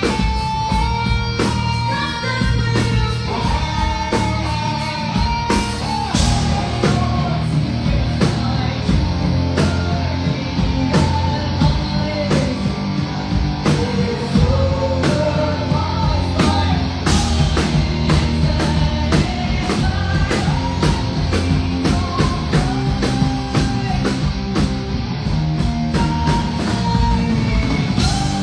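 Live rock band playing loud: distorted electric guitars, bass and a steadily beating drum kit under a female lead vocal singing melodic lines.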